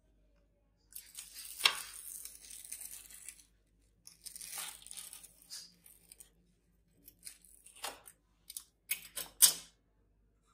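Knife cutting through a toasted sandwich's crisp bread: two longer stretches of scratchy sawing and crunching, then several short strokes and clicks near the end.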